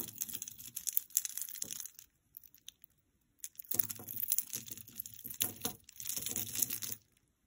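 Close-up crinkling and clicking from a large statement necklace and the loose jewelry around it being handled and rummaged through. It comes in two stretches with a quiet gap of about a second and a half between them.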